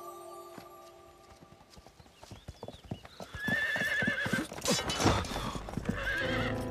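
Horse galloping: hoofbeats grow louder from about a second and a half in, with a wavering whinny about three and a half seconds in and a shorter one near the end.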